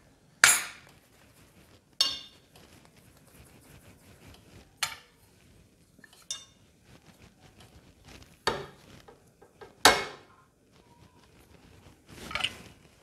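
Brass murukku (sev) press being handled and filled with dough: a series of about seven sharp metal knocks and clinks, a second or two apart, the loudest about half a second in and about ten seconds in.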